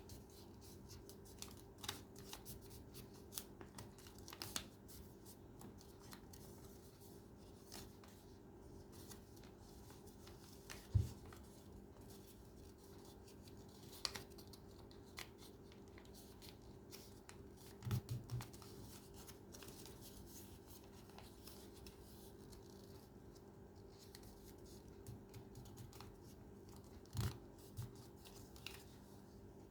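Paper being handled and creased by hand: faint scattered crinkles and clicks, with a few soft thumps against the work surface. A steady low hum runs underneath.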